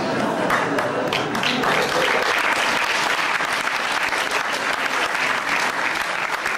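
Theatre audience applauding, a dense patter of many hands clapping that builds over the first second or so and then holds steady.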